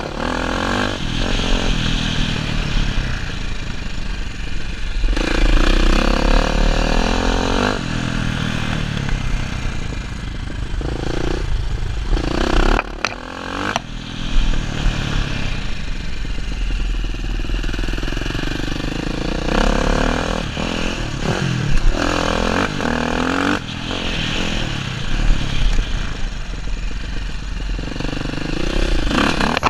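Dirt bike engine ridden hard on a motocross track, revs climbing and falling again and again as the rider throttles out of corners and shifts, with the throttle shut briefly about halfway through. Heard from the rider's helmet with wind rush.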